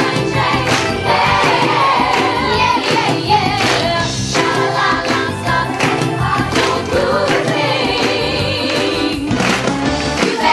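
Young stage cast singing together as a chorus over musical accompaniment with a steady beat, a musical theatre number in full swing.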